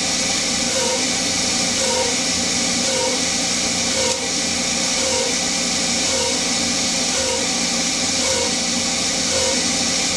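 Steady hiss of a Noga air mister blowing at the cut while a Hercus PC200 CNC lathe turns 6061 aluminium, with air compressor noise underneath. A faint tone swells and fades about once a second.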